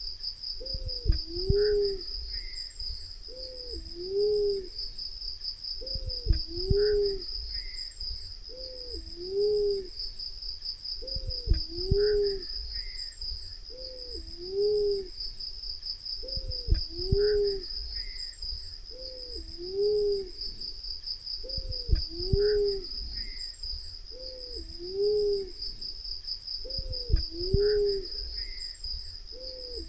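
Black-naped fruit dove calling: a low two-part cooing hoot, a short note slurring into a rising-and-falling 'oo', repeated at even intervals about every two and a half seconds as a lure call. A steady high-pitched insect trill runs underneath.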